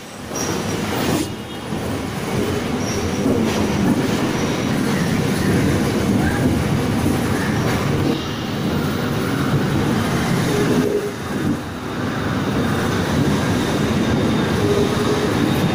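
Mumbai suburban local train (an electric multiple unit) running along a platform, heard from the carriage's open doorway: a steady, loud rumble and rattle of wheels on the rails.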